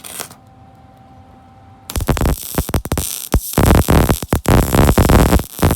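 MIG welding arc crackling in loud, irregular bursts that start about two seconds in and break off briefly a few times. Before it, a faint steady hum.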